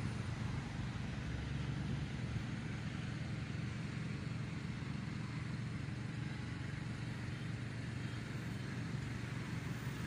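Steady low rumble of outdoor background noise, even throughout, with no birdsong or distinct events.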